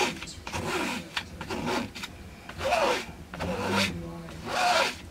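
A painting tool scraping oil paint across a stretched canvas in a series of about five strokes, each about half a second long.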